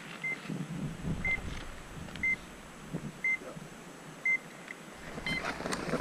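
Short, high electronic beeps, one each second, six in a row, over faint rustling; the last beep has a second, higher tone.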